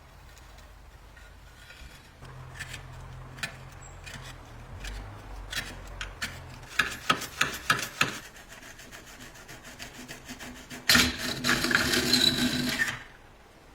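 Hand work on parts of a vintage gas heater under restoration: a run of clicks and knocks, then about two seconds of loud scraping or rubbing near the end that stops abruptly.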